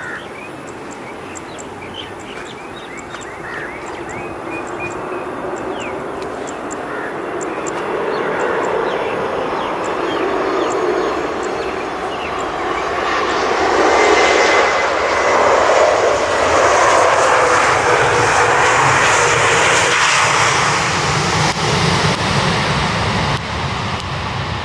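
Airliner passing close by on a landing or takeoff. Its engine roar builds steadily to a peak about two-thirds of the way through and then begins to fade.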